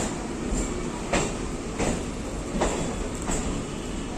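Train running on the rails with a steady rumble, its wheels clacking over rail joints about every two-thirds of a second.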